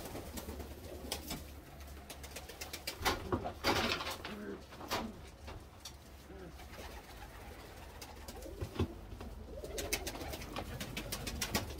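Domestic pigeons cooing in a loft, with scattered clicks and a louder rustle about three seconds in.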